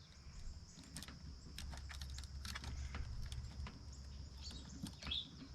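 Faint scattered clicks and ticks of a chainsaw chain being worked by hand into the groove of the guide bar, over a low background rumble and a steady faint high hiss.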